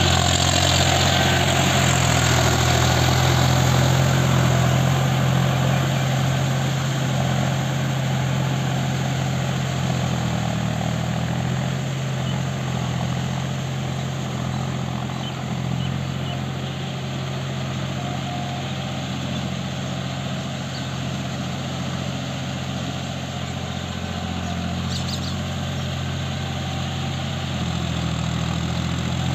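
John Deere tractor's diesel engine running steadily under load, working a rear implement through flooded paddy mud. Loudest at first, it fades as the tractor moves away and grows a little again near the end.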